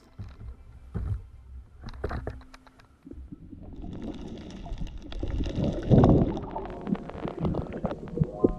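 Seawater sloshing and gurgling around a camera held at and below the water's surface, muffled and churning, with a few sharp knocks in the first seconds and growing louder toward the end.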